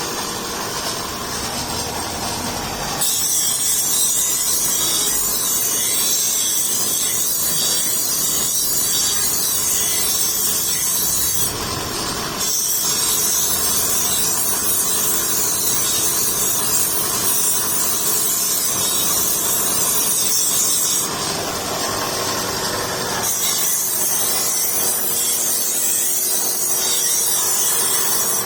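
A power tool in a metalworking shop grinding or cutting steadily, in three long passes of about eight seconds each with short breaks between them.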